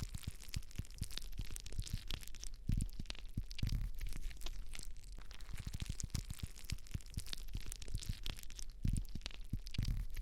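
Slime being squished and worked by hand, giving a dense run of sticky crackles and small pops, with fuller, deeper squishes about three seconds in and again near the end.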